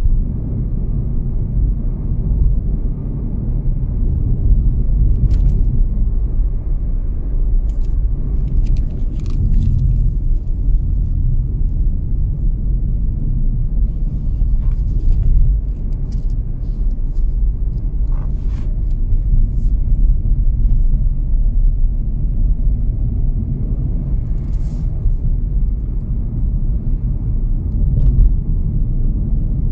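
Car on the move, heard from inside the cabin: a steady low rumble of engine and road noise, with a few faint brief clicks.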